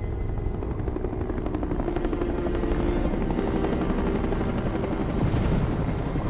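Helicopter flying by, its rotor beating rapidly and evenly over a steady low engine drone and rumble.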